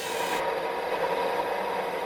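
A machine tool cutting metal: a steady grating cut with a hum under it.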